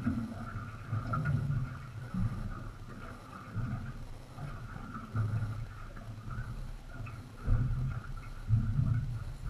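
Water slapping and knocking irregularly against the hull of a small boat drifting on a light chop, a low knock every second or so.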